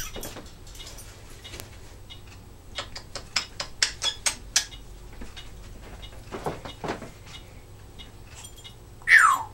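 Timneh African grey parrot making a run of sharp clicks, then a loud, quick falling whistle near the end.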